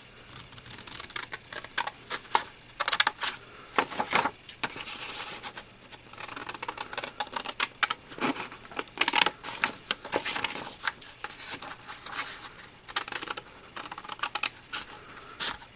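Micro-serrated Tim Holtz craft scissors cutting paper: an irregular run of crisp snips and slicing strokes, some sharper and louder than others.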